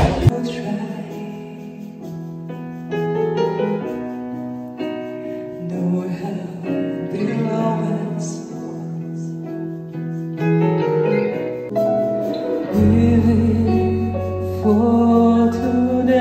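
Live small band playing: a woman singing over keyboard/piano and electric guitar. A deep bass line comes in about thirteen seconds in.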